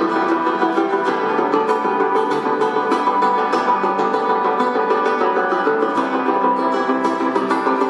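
Solo nylon-string classical guitar played live, a steady stream of fast plucked notes ringing over one another.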